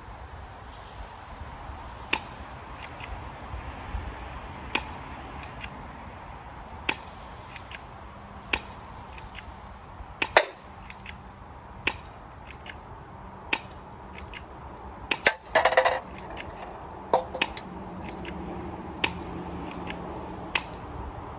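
A spring-powered airsoft pistol, the Ukarms P2003, being cocked and fired again and again. There are about twenty sharp clicks and snaps at irregular spacing, with a brief rattling burst a little past the middle.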